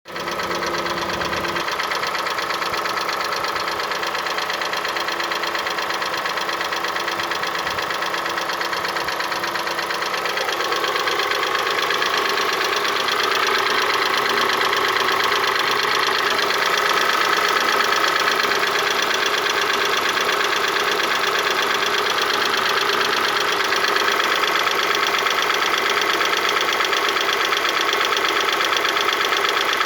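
Hyundai ix35 engine idling cold with a fast, even knocking. The owner says the knock is gone once the engine is warm.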